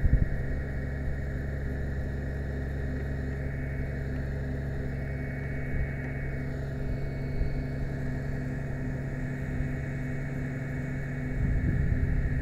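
Fire truck's aerial ladder running under power, its engine and hydraulics giving a steady low hum while the ladder swings round. Near the end the hum stops and a louder rushing noise takes over.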